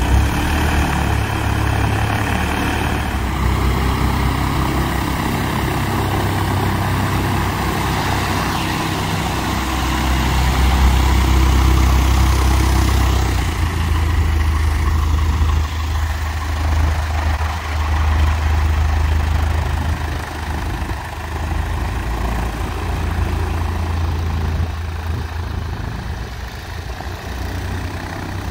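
Piper Archer's four-cylinder Lycoming O-360 engine and propeller running at low taxi power as the plane taxis past. The drone is loudest about a third of the way in and eases slightly as the plane moves away.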